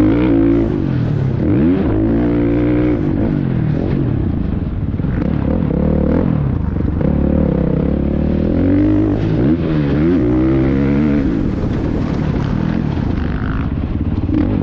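KTM 300 SX two-stroke motocross bike engine heard from on the bike, revving up and down over and over as the throttle is worked around the track, with wind rush on the microphone.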